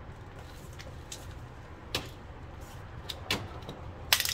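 A few sharp knocks and clatters from boxed small appliances being handled and unpacked, the loudest a quick cluster near the end, over a low steady hum.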